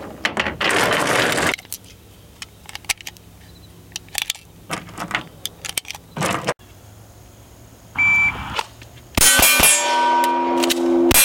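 Loose 9 mm cartridges pouring and clinking onto a plastic truck-bed liner, then scattered clicks as rounds are pressed one by one into a pistol magazine. Near the end, handgun shots followed by a loud metallic ringing that holds for over a second.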